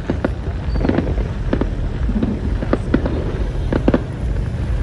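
Fireworks going off: a continuous low rumble of booms with many scattered sharp cracks and pops.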